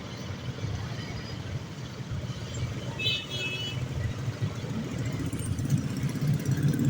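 Heavy bus engine running with a steady low rumble that grows louder in the last couple of seconds, with one brief high tone about three seconds in.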